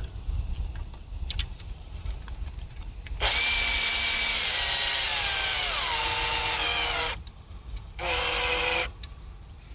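Cordless drill running in two bursts: the first, about three seconds in, lasts around four seconds with its pitch stepping down as the motor slows; the second is shorter and steady, about a second later.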